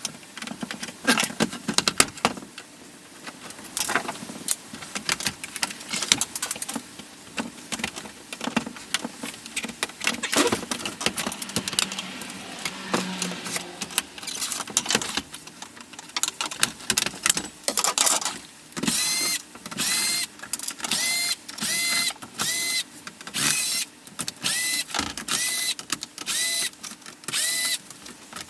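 Clicks and knocks of plastic parts and screws as an old laptop is taken apart. From about two-thirds of the way in, a small electric screwdriver whirs in short, even bursts, about one every 0.7 seconds, each with a whine that rises as it spins up.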